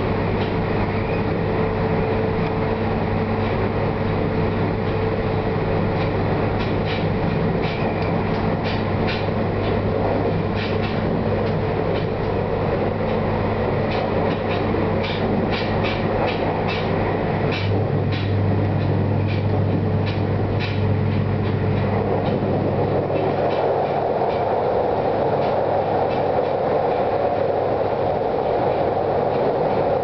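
Train running noise heard from inside a passenger car: a steady hum with quick runs of clicks as the wheels pass over rail joints, changing about three-quarters of the way through to a louder rushing rumble as the train runs onto a steel truss bridge.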